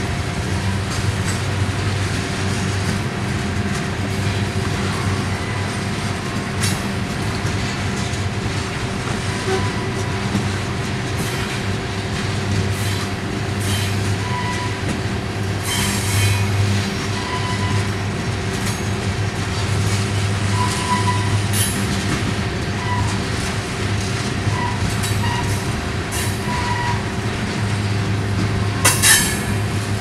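Tank cars of a Union Pacific manifest freight train rolling past close by, with a steady rolling noise of wheels on rail. Short wheel squeals come now and then, and there is a sharp clank near the end.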